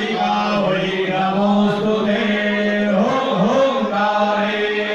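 A man's voice chanting Hindu mantras for a yajna fire offering, held almost on one pitch without a pause, the pitch wavering briefly about three seconds in.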